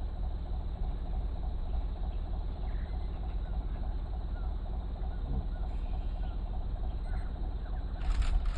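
Safari jeep's engine running steadily with a low rumble, with a few faint bird chirps over it and a couple of sharp clicks near the end.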